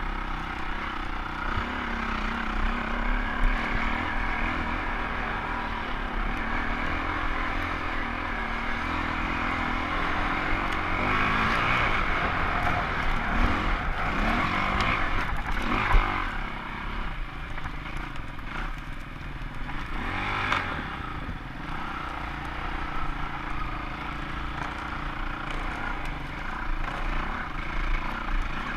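Trail motorcycle engine running over rough woodland ground, its revs rising and falling with the throttle, with a sharp knock about sixteen seconds in.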